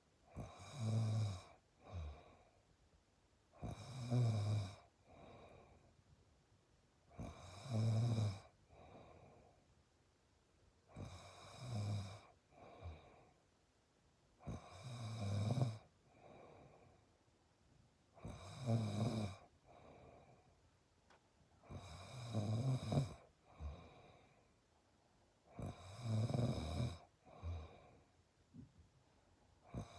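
Rhythmic snoring: a loud, buzzy snore about every three and a half seconds, each followed by a softer breath, about eight cycles in all.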